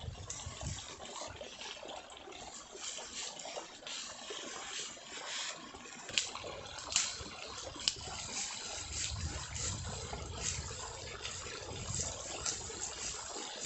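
Dry bamboo leaves and twigs crackling and rustling as someone moves through thick leaf litter and brush, with three sharp snaps in the middle and a low rumble a little later.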